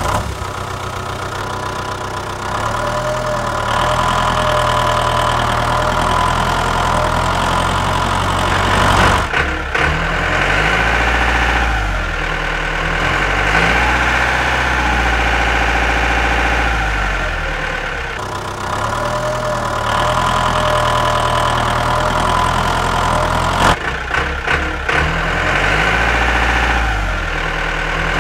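Tractor engine running steadily, its pitch dipping and rising again a few times as it revs.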